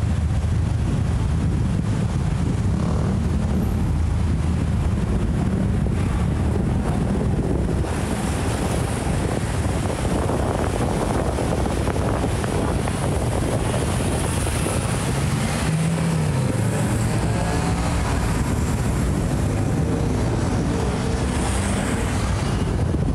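Loud, continuous engine noise: a steady low hum that grows rougher, its pitch wandering in the second half.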